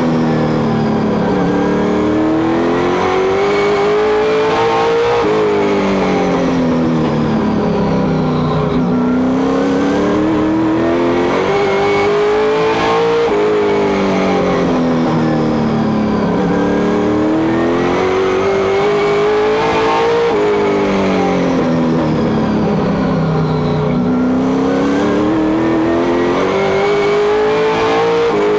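Race car engine heard from inside the cockpit, climbing in pitch as it accelerates down each straight and falling as the driver lifts off for the turns. The rise and fall repeats about every seven to eight seconds, lap after lap, four times over.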